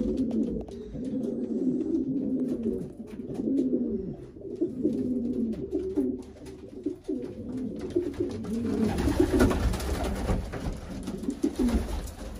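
A flock of racing pigeons cooing over one another in the loft, a steady overlapping murmur of low coos. From about nine seconds in, a rustling noise joins the cooing.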